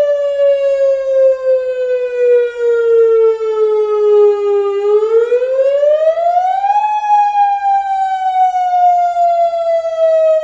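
Tsunami warning siren wailing in one steady tone that slowly falls in pitch, climbs quickly about halfway through, then slowly falls again.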